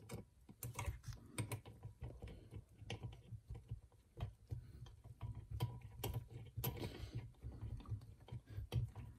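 Faint, irregular light clicks and taps of small metal parts and a screwdriver being handled on a bench while a T25 Torx bolt is started by hand into an aluminium TPI fuel rail.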